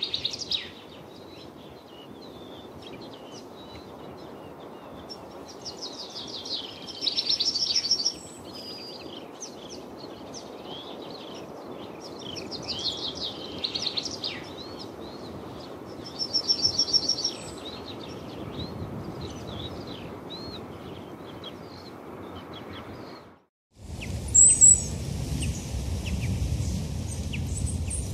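Songbirds singing over a steady outdoor hiss, one bird repeating a short song that ends in a rapid high trill about every five seconds. Near the end the sound drops out briefly and gives way to a lower rumbling noise with scattered chirps.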